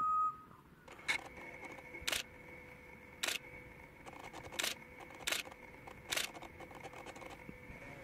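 A clear, level whistled note cuts off just after the start. Then six short, sharp clicks follow at uneven intervals about a second apart, over a faint steady high-pitched tone.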